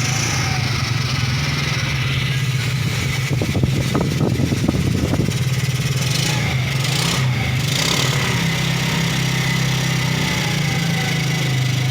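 Small single-cylinder motorcycle engine of a Modenas Kriss idling steadily after a general overhaul, with a brief cluster of light knocks and rattles about three to five seconds in.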